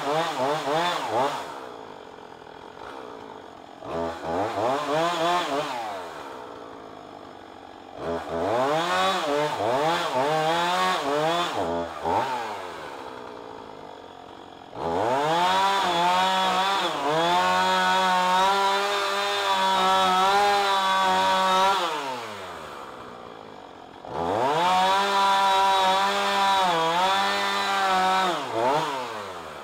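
Two-stroke chainsaw cutting into a thick overhead tree limb: five bursts of full throttle, each climbing quickly, holding high and dropping back to idle between cuts. The longest cut runs about seven seconds, in the middle.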